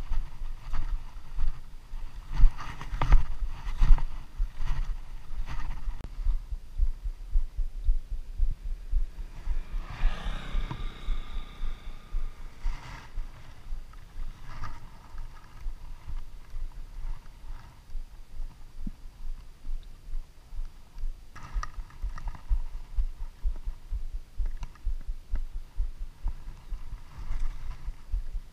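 Dull low rumble and quick thumps of wind and handling noise on a body-worn action camera's microphone, busiest in the first few seconds, with a brief louder rush about ten seconds in.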